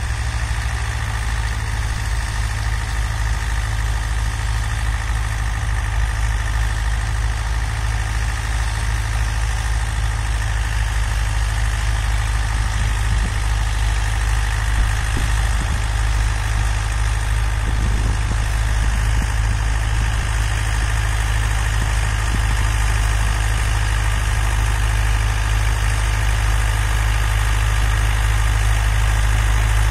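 Diesel engines of compact Dongfeng and Jinma tractors running steadily while working rotary tillers, a continuous low rumble. It grows slightly louder near the end as the nearest tractor drives toward the camera.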